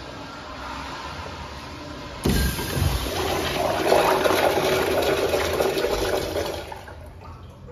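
Flush-valve urinal flushing. A sudden rush of water about two seconds in hisses steadily for about four seconds, then tapers off.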